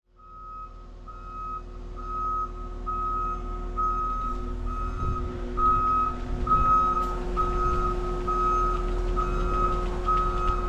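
Vehicle reversing alarm beeping at an even pace, a little more than once a second, over the steady hum of an engine.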